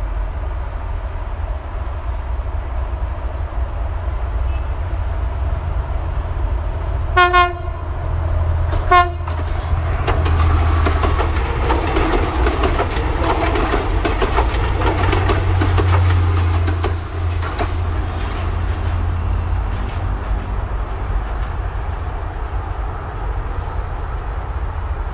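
Philippine National Railways diesel train with a steady low engine rumble. It gives two short horn toots about seven seconds in, a second and a half apart, then its wheels clatter over the rail joints. A thin high-pitched squeal lingers toward the end.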